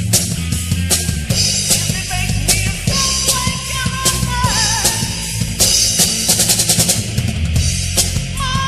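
Heavy metal band playing: drum kit with kick, snare and cymbals, bass and guitars, with a held note that wavers slightly through the middle of the passage.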